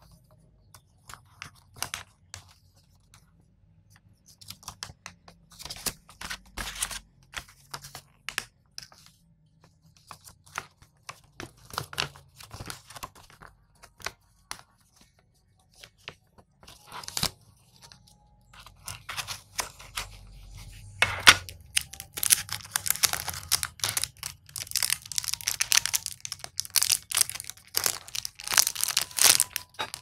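Paper instruction leaflet rustling and crinkling as it is unfolded and handled, in short scattered bursts. About two-thirds of the way in there is one sharp snap, and after it the crinkling becomes dense and continuous as the wrapping is handled.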